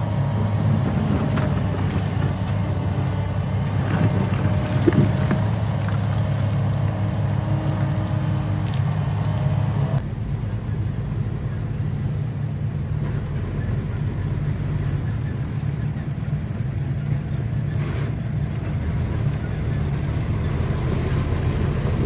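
Heavy diesel engine of construction machinery running steadily, with a few metallic knocks, the loudest about five seconds in.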